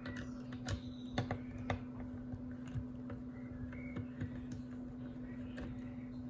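Irregular small clicks and ticks of a Phillips screwdriver turning screws out of a metal V2 airsoft gearbox shell, over a steady low hum.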